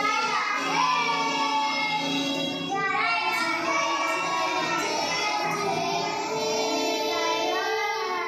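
Children's voices singing a song over an instrumental backing.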